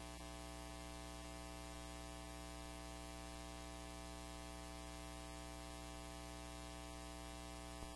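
Steady hum made of several constant tones that do not change pitch or level.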